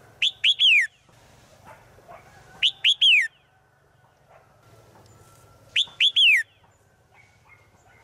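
Female red-whiskered bulbul in a cage calling three times, about every three seconds. Each call is two short rising notes and then a longer falling note, a call to males.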